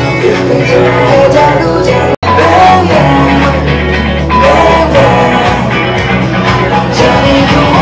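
Loud recorded dance song with a singer's voice, playing for a solo dance. The sound cuts out for an instant about two seconds in.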